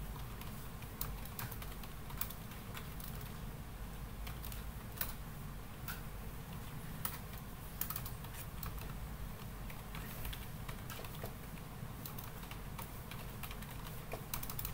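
Typing on a computer keyboard: irregular keystrokes with short pauses between bursts, over a steady low hum.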